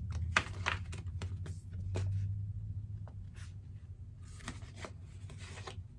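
Sticker sheet being handled and its backing peeled: scattered small clicks and short papery rustles, over a steady low hum.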